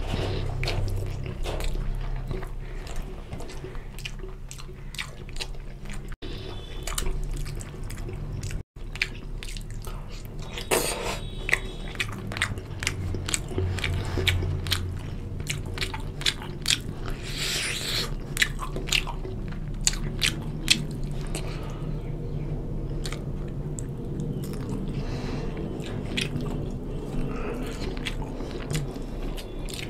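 Close-up chewing of chicken curry and rice eaten by hand, with many short, wet mouth clicks and smacks.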